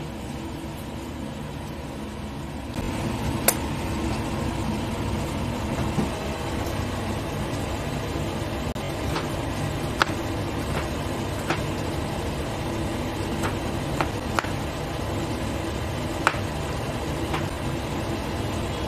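Kitchen knife cutting through pineapple and striking a wooden chopping board, about a dozen sharp clicks at irregular intervals, over a loud steady machine-like hum that gets a little louder about three seconds in.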